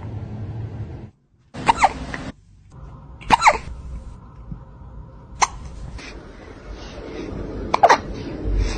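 A cat hiccuping: four short, sharp hiccups, each with a brief squeaky pitch, spaced a second or two apart.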